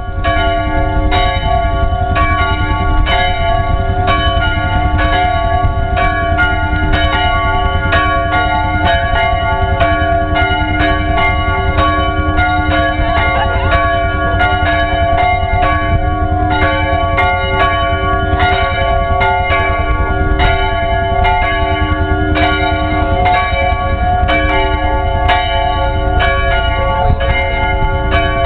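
Several church bells pealing together, a stroke about every half second, their long ringing tones overlapping, over a steady low rumble.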